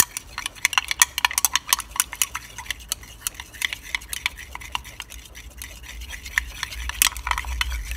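Glass stirring rod clinking rapidly and irregularly against the inside of a glass beaker as a thickening gel is stirred by hand.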